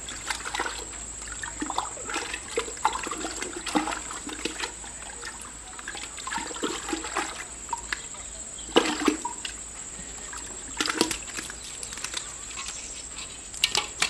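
A hand and arm groping in a water-filled hole in pond mud, feeling for catfish in the burrow. It gives irregular squelches, sloshes and small splashes of muddy water, two of them louder, about 9 and 11 seconds in.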